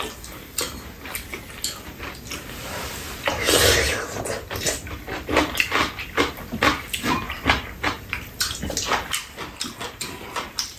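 Close-up eating sounds: metal spoons and chopsticks clicking against bowls and a frying pan, with slurping and chewing, and one longer slurp about three and a half seconds in.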